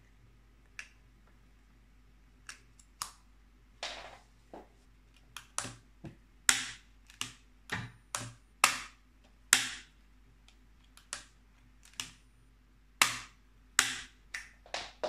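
Residual current device and circuit breaker being switched on and off by hand: a series of sharp snapping clicks at irregular intervals, the louder ones in the second half.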